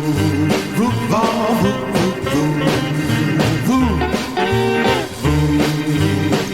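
1958 rock and roll record playing: a band with guitar and a walking bass line, and voices singing in swooping, gliding phrases.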